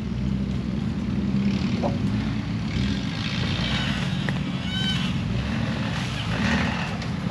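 Jeep engine running steadily at low revs while crawling along a trail, with a rushing hiss over it. A brief high squeak comes about five seconds in.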